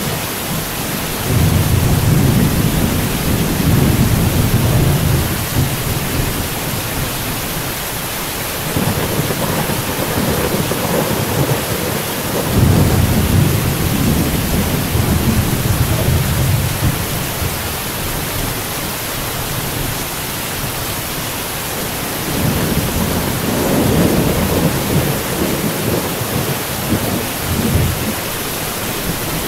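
Thunderstorm: steady rain hissing throughout while rolling thunder rumbles low and long, swelling and fading several times over.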